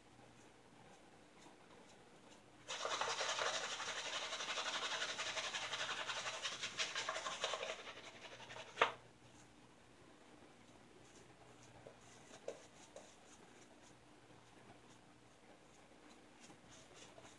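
Shaving brush scrubbing lather over a stubbly face: a faint rasp, then about five seconds of loud, fast scratchy brushing starting about three seconds in, and a single click near the middle.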